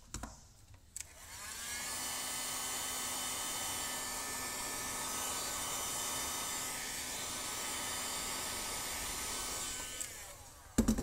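Hand-held hot-air gun switched on with a click about a second in, its fan spinning up to a steady whine with a rush of blown air. It blows for about eight seconds, then winds down, and a few sharp knocks follow near the end.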